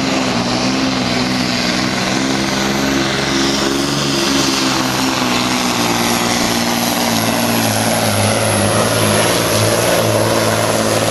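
Diesel engine of a competition pulling truck running hard under full load as it drags the weight-transfer sled, a steady drone that holds its pitch with only slight shifts.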